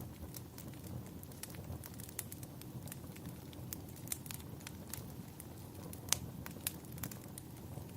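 Wood fire crackling, with irregular sharp pops over a steady low rumble; a couple of louder pops about six seconds in.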